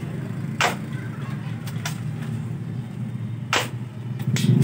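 Spring-powered airsoft rifle firing twice, about three seconds apart, each shot a sharp crack from the released spring piston, with fainter clicks between the shots. A motor engine runs steadily underneath.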